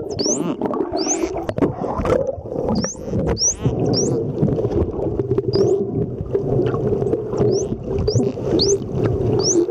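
Indo-Pacific bottlenose dolphins whistling underwater in short, high, rising chirps that come every second or so with some gaps, as they release bubbles from the blowhole. A few clicks and a steady low underwater rush sit beneath.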